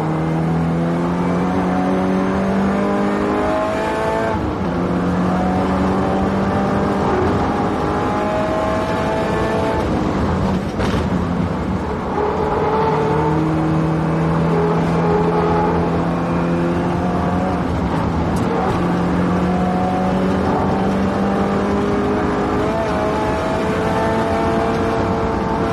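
Subaru Impreza WRX STI's turbocharged flat-four engine pulling hard at speed. Its pitch climbs through long stretches and drops at upshifts about four, twelve and twenty-two seconds in, with a brief knock about eleven seconds in.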